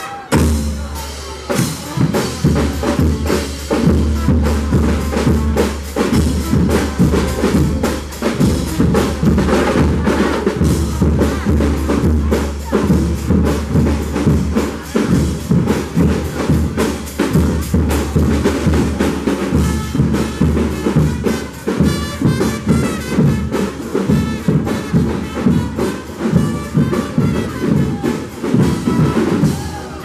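Street brass band playing a dance tune: sousaphone bass line, brass and a marching bass drum and snare keep a steady, driving beat. The deep bass comes in just after the start.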